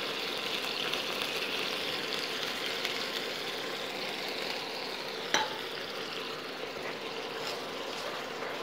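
Spiced tomato-ketchup masala paste sizzling in a non-stick frying pan on an induction cooktop, with a single sharp knock a little over five seconds in. A steel slotted spatula stirs through the paste near the end.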